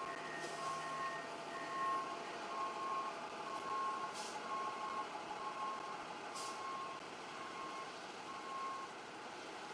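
Electronic beeping, a short steady tone repeating about every half second over steady background noise, like a truck's reversing alarm. A second, higher beep runs with it for the first couple of seconds, and the beeping stops about nine seconds in.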